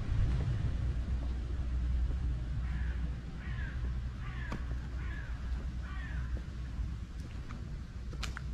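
A crow cawing about six times in quick succession, a few seconds in, over a steady low rumble.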